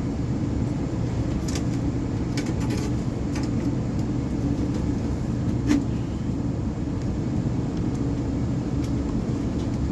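A steady low rumble with a few light clicks and a single knock a little past halfway.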